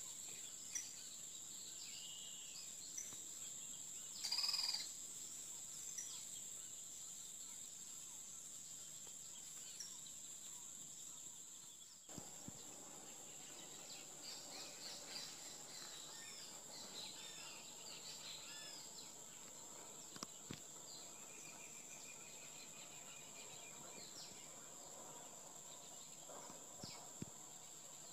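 Outdoor ambience: a steady high-pitched insect drone with scattered bird chirps and calls, one louder call about four seconds in.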